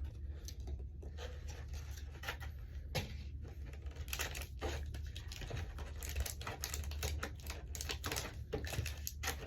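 Pokémon trading cards and their wrappers being handled: an irregular string of small clicks, taps and rustles over a steady low hum.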